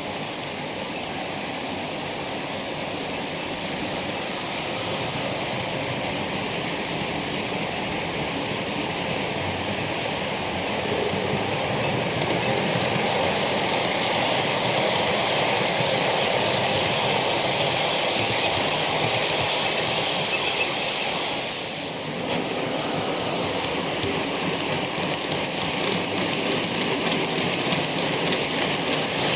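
OO gauge model train, a diesel locomotive hauling a long rake of bulk cement tank wagons, rolling along the track: a steady rolling noise of wheels on rail that grows louder as the train nears and passes close by, dipping briefly about three-quarters of the way through.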